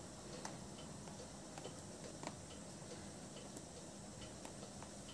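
Faint, irregular small ticks of a marker pen tracing around a rubber sole patch held on a sneaker's rubber outsole, over a low steady room background.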